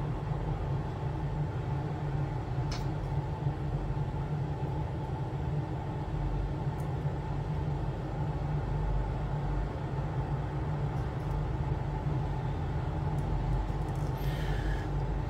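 A steady low hum fills the background, with a couple of faint clicks and a short rustle near the end.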